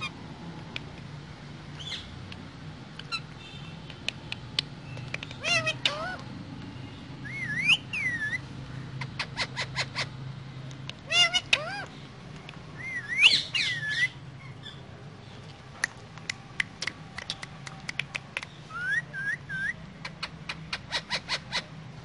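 Pet Alexandrine and ringneck parakeets giving short whistled chirps and squawky calls in several bursts, with rapid sharp clicks in between.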